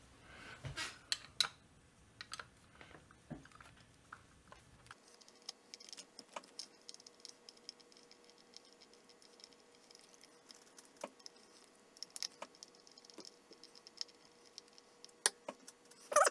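Scattered light clicks and taps of a screwdriver and small parts on a chainsaw's plastic tank housing and crankcase, as screws are driven into its machine-threaded holes.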